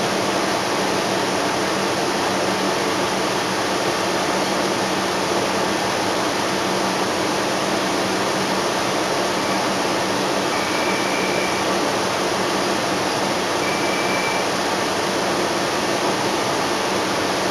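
Steady hiss inside a NABI 31-LFW CNG transit bus standing at a stop: the air conditioning running over the idling Cummins L Gas engine. A few short, faint high beeps come in the middle.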